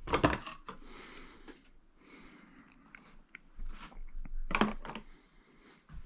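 Scattered small clicks, crackles and rustles of hands working with tools and parts, with a couple of louder clatters a little past the middle.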